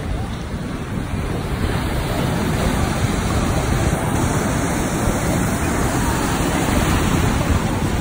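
Ocean surf: waves breaking and whitewater churning, a steady rushing wash that swells gradually louder.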